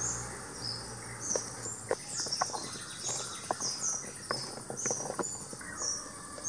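Garden ambience: insects trilling steadily at a high pitch, with repeated short bird chirps and a few light clicks and taps in the middle.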